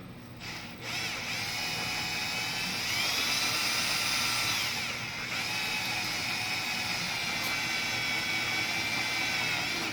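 Electric drill running with a high whine as it bores a hinge screw hole, starting about a second in. Its pitch rises about three seconds in, dips briefly around five seconds, then holds steady until it stops near the end.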